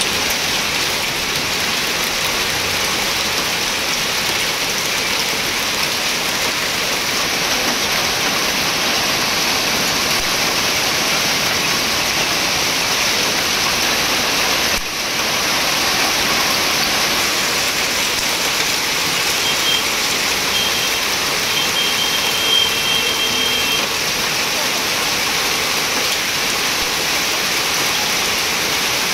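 Heavy rain mixed with hail pelting a street, a dense, steady hiss of countless small impacts.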